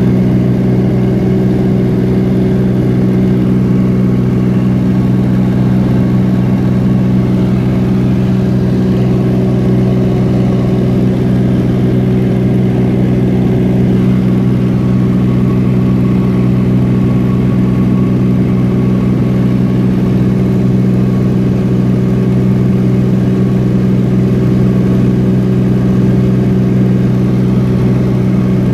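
Small propeller plane's engine and propeller in steady cruise, heard from inside the cabin: a loud, even drone with a low hum that doesn't change.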